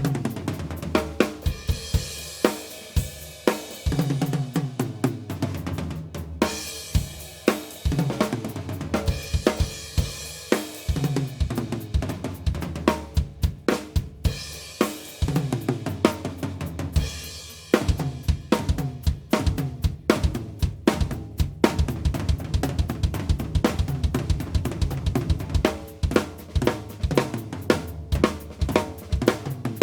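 A close-miked 1990s Mapex Mars Pro drum kit with mahogany/maple shells, played continuously: bass drum, snare and hi-hat in a busy groove, with cymbal crashes washing over it at times and a couple of brief breaks in the playing.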